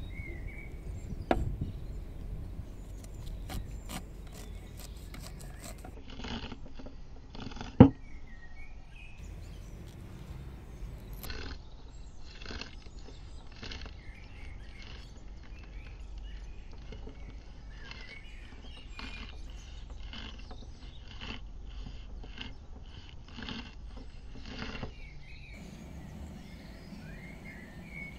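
A broad-bladed knife slicing kernels off an ear of sweet corn on a wooden board: a string of short cutting strokes, one or two a second, with two sharp knocks of the blade on the board, the louder one about eight seconds in. Birds chirp faintly in the background.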